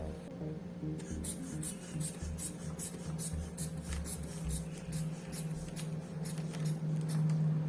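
Sphygmomanometer rubber inflation bulb squeezed over and over to pump up the blood-pressure cuff: a rapid series of short air puffs and clicks, about three a second, starting about a second in, with faint background music.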